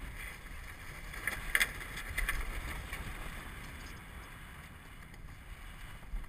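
Wind buffeting the microphone and water rushing along the hull of a Farr 30 racing yacht under sail, with a few short sharp noises about one and a half to two and a half seconds in.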